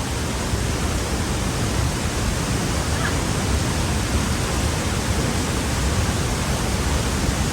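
Steady rushing roar of a waterfall: falling water making a loud, even noise with no breaks.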